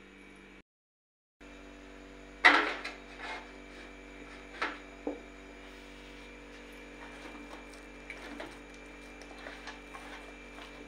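A steady electrical hum with a few sharp knocks and clinks of steel kitchenware being handled, the loudest about two and a half seconds in. All sound drops out briefly just under a second in.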